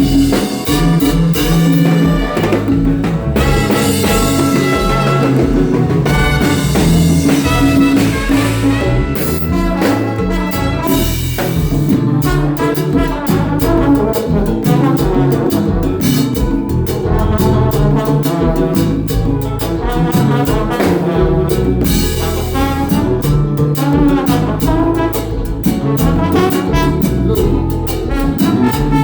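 Live konpa band playing, with a brass horn section over a drum kit and a steady dance beat.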